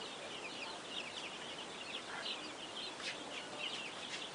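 A flock of chickens peeping: many short, high-pitched chirps overlapping without a break.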